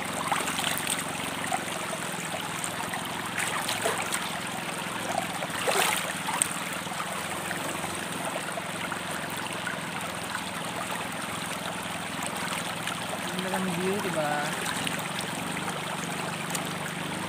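Shallow, rocky river flowing steadily, a constant rushing of water over the stones. A few short splashes come in the first six seconds.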